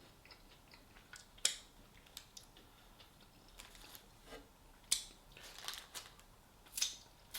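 A few short, sharp handling noises, clacks or scrapes: three clear ones, about a second and a half in, about five seconds in and near the end, with fainter ticks between.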